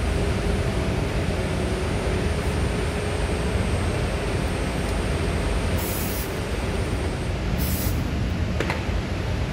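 Two short hisses from an aerosol can of dye-penetrant test chemical sprayed onto a steel pressure vessel's weld, about six and seven and a half seconds in, over a loud, steady machinery-room noise. A small click follows near the end.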